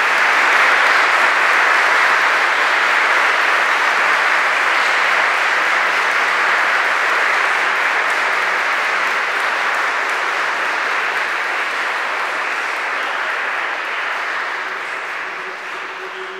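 Audience applauding, the applause slowly dying away toward the end.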